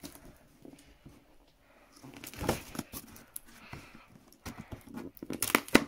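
Scissors cutting the packing tape on a cardboard box, with scattered rustles, tearing and sharp clicks of the cardboard being handled; a quiet start, then a louder burst about two and a half seconds in and a run of sharp clicks near the end.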